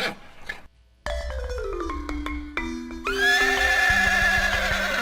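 Background music with a descending run of xylophone-like notes over a low bass, then, about three seconds in, a horse's long whinny with a wavering pitch.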